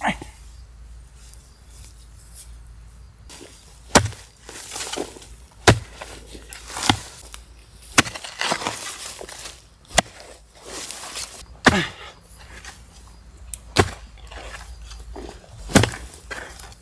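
A hoe chopping into earth, about eight sharp strikes spaced one to two seconds apart, with scraping and rustling of soil, roots and dry twigs between them as a root tuber is dug out.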